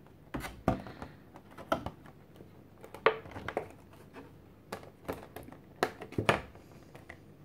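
Irregular sharp clicks and taps of a clear plastic packaging insert being handled, with trading cards pressed and slid against the plastic as they are worked loose.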